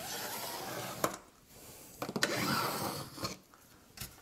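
Pencil scratching along the edge of a spirit level on a wall, drawing a line in two strokes of about a second each, with a few sharp clicks in between.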